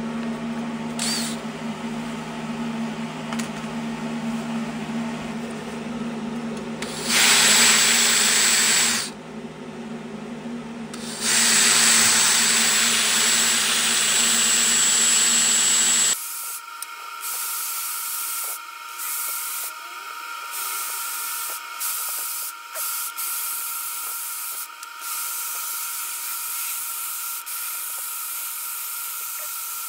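Electric die grinder spinning a carbide burr in a port of a Lincoln V12 flathead engine block, grinding the metal to open up and blend the port. The tool runs at a steady whine and grows louder in two stretches as the burr bites. About halfway through the sound changes abruptly to a thinner, higher whine with brief breaks.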